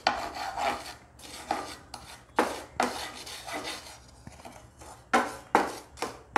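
Wooden spatula scraping and stirring lumps of jaggery around a nonstick pan, in irregular rasping strokes about twice a second, a few louder than the rest. The jaggery is still in solid lumps and has not yet melted.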